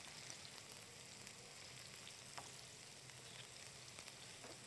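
Faint, steady sizzle of skin-on fish pieces shallow-frying in olive oil in a non-stick pan, with a couple of light clicks about halfway through and near the end as the pieces are turned with tongs.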